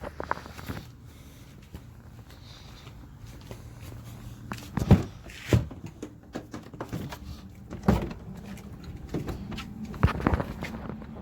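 Several sharp plastic knocks and clunks as a bucket swamp cooler's lid is handled to get at the ice inside, over the steady hum of its small USB fan.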